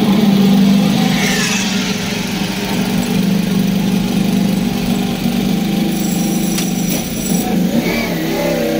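Ducati Panigale V4 R superbike engine running at a steady, loud idle. Near the end the engine note rises as the bike pulls away.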